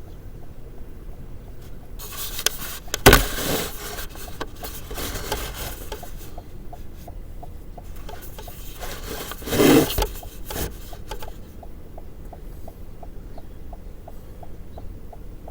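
Close rubbing and scraping against the microphone inside a car, with two heavier bumps about three seconds in and near ten seconds, over a faint, even ticking about twice a second.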